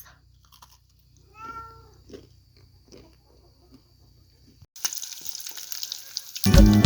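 A house cat meows once, about a second and a half in. Later a steady hiss comes in, and music starts loudly near the end.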